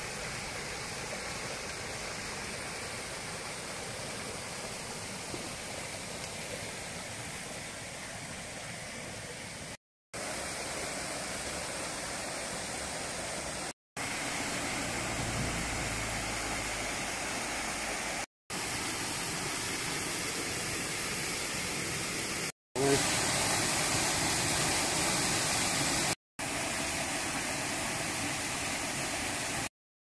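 Small mountain stream rushing and splashing over rocks in little cascades, a steady rush of water broken by brief silent gaps every few seconds.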